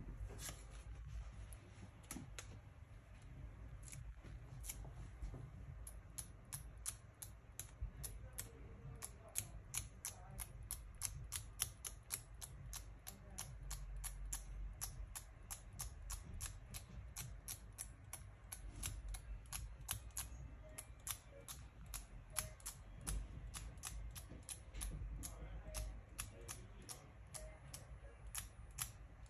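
Sharp, evenly spaced clicks, sparse at first, then steady at about two a second from some six seconds in, over a low rumble.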